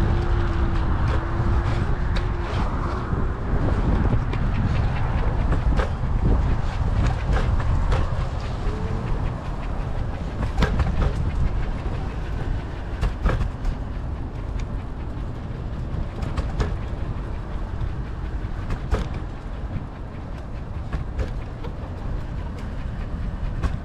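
Wind buffeting the microphone while riding a Lime electric scooter, with a steady low rumble from the wheels on concrete and irregular sharp clacks as the scooter rattles over pavement joints and cracks.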